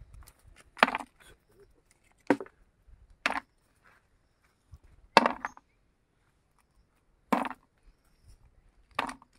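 Raw cashew nuts twisted off cashew apples by hand and dropped into a bucket of nuts: six sharp clacks, irregularly one to two seconds apart.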